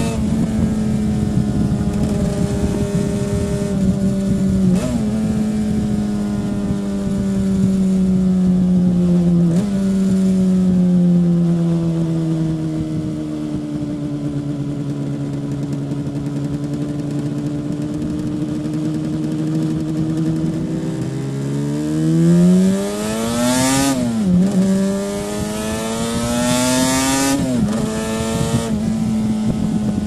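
Stock 1984 Yamaha RD500's 499 cc liquid-cooled V4 two-stroke engine running on the road. Its note holds, falls in steps and sinks slowly through the middle as the revs drop, then climbs again under acceleration about 21 seconds in, with two sharp brief dips before it steadies near the end.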